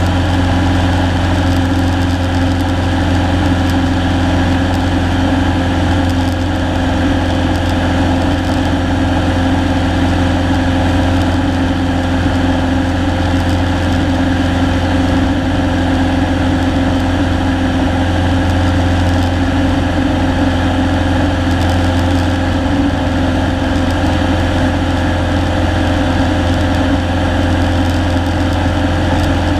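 Single-engine Cessna's piston engine and propeller running at a steady, unchanging drone in flight, heard from inside the cockpit.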